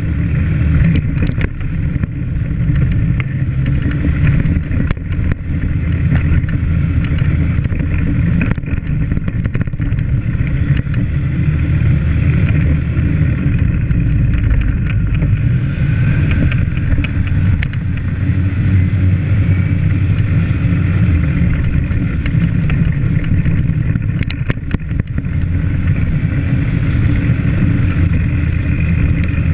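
ATV engine running steadily under way on a rough dirt trail, with scattered short clicks and knocks over it.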